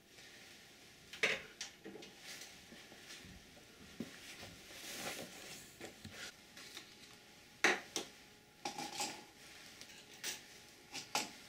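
Scattered light clicks and clinks of small steel fish hooks and a metal chainsaw-file hook sharpener being handled and set down on a wooden workbench, with a soft scraping rustle near the middle.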